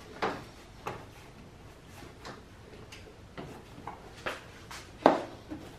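Hard plastic clicks and knocks as the Mercedes W212 E350's plastic air intake plenum is unclipped and handled: several scattered sharp clicks, the loudest about five seconds in.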